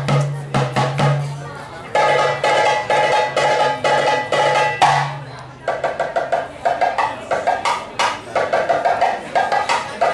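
Live hand drumming: fast, dense strokes and rolls in a driving rhythm. A low steady tone lies under the first half and fades about five seconds in.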